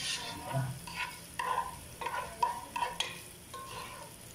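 Chopped garlic and onion frying in olive oil in a granite-coated pot, with a faint steady sizzle. A black plastic spatula stirs the pan in short scraping strokes, about two or three a second.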